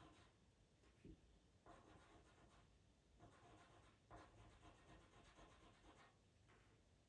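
Faint scratchy strokes of a pastel pencil on textured Pastelmat paper, a quick irregular series of short scribbles as fur is shaded in, with a soft bump about a second in.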